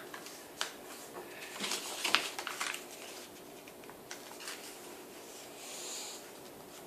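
A sheet of paper being folded and creased by hand: soft rustles and crinkles, with a few sharper crackles about two seconds in.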